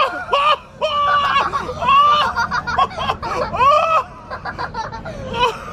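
Young children's high-pitched squeals and excited wordless vocalising, with bits of laughter, for about four seconds before quietening.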